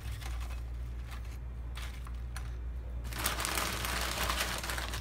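A few light clicks as crackers are set on a plate, then from about three seconds in a dense crinkling of a plastic Doritos chip bag being handled. A steady low hum runs underneath.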